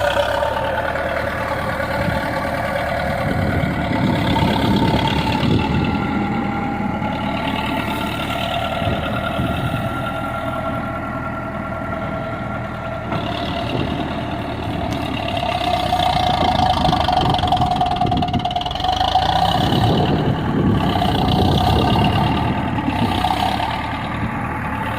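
Diesel engine of a farm machine running steadily, with a whining tone over the rumble that drifts up and down in pitch.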